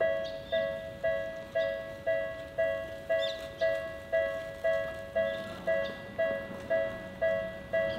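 Japanese railway level-crossing electronic warning bell ringing, a clanging two-tone strike repeated about twice a second: the signal that a train is approaching and the barriers are lowering.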